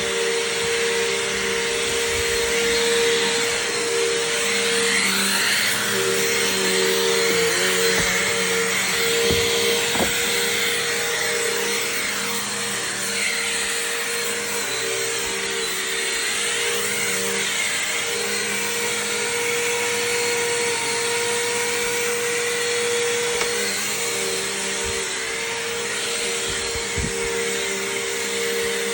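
Bissell PowerForce Compact upright vacuum cleaner running steadily on a floor, its motor hum and airflow rush holding a steady pitch that wavers slightly as it is pushed and pulled. A few short knocks come through along the way.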